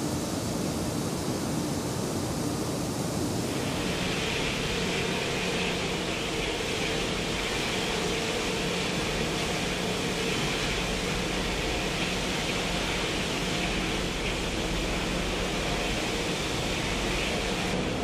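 Steady rushing noise of steelmaking plant at a furnace and molten-metal pour, with a faint hum underneath. About three and a half seconds in it turns hissier and stays so.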